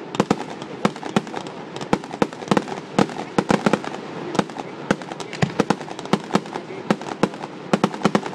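Fireworks display: a rapid, irregular run of sharp bangs and cracks, several a second, from shells bursting overhead.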